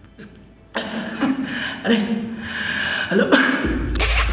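A gagged man's muffled laughing and gasping breaths through the cloth over his mouth, after a quiet start. A sharp hiss-like burst comes near the end over a low rumble.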